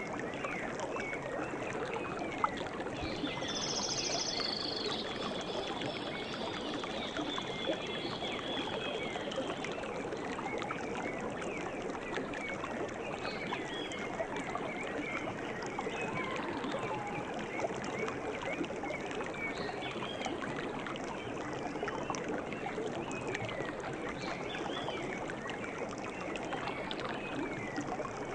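A stream of running water flowing steadily, with small birds chirping throughout. A thin, high note is held for several seconds a few seconds in.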